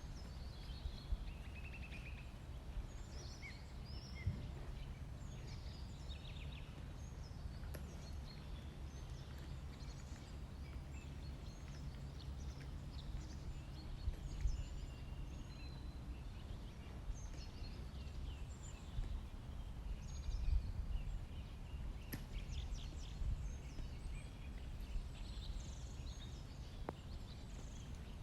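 Outdoor ambience: wild birds chirping and trilling on and off over a steady low rumble of wind on the microphone.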